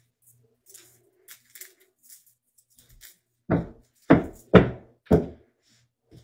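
Four heavy thumps about half a second apart, each with a short echo of a small tiled room, after a few faint ticks.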